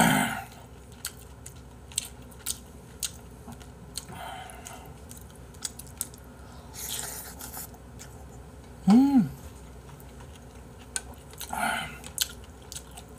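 Close-up eating sounds from spicy seafood soup with rice: chewing and mouth noises, with small sharp clicks of a metal spoon against the bowl. A short hummed 'mm' of enjoyment comes about nine seconds in.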